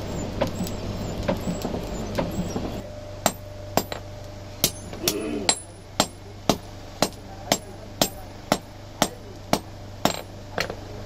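Hand hammer striking a sickle blade on a steel anvil block, each blow a sharp metallic strike. Lighter, quicker taps for the first few seconds, then steady heavier blows about two a second.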